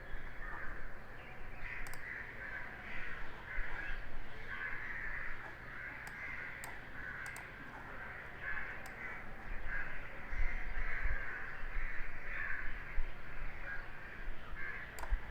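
Birds calling over and over in the background, with a few faint clicks, likely from a computer mouse.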